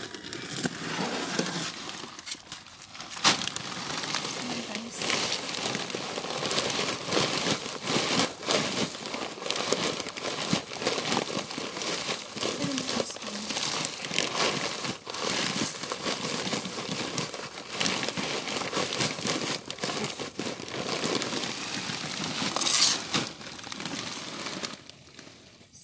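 Plastic sack of small gravel crinkling and rustling as it is handled and tipped, with the stones pouring out and clattering onto weed membrane in a dense crackle of small clicks. A few louder knocks stand out, one a few seconds in and another near the end.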